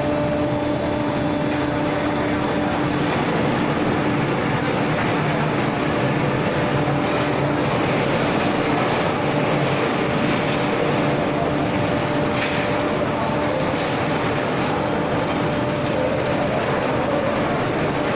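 Steady industrial machine noise from an aluminium billet homogenizing furnace installation: a dense, even hiss with a constant low hum that does not change.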